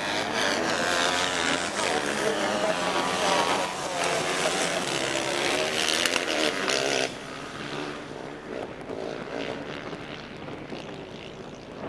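A pack of small racing buggies' engines revving together, their pitches rising and falling as they drive past. About seven seconds in the sound drops suddenly, and the engines go on more faintly in the distance.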